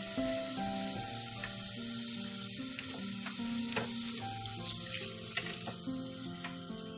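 Sweet potato fries deep-frying in hot oil in a pan, a steady sizzle, with a few sharp clicks as a metal slotted skimmer lifts them out. Soft background music plays underneath.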